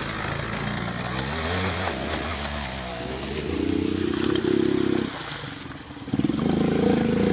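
Small youth ATV engines running and revving, the engine note swelling loudly around the middle and again near the end as the quads accelerate.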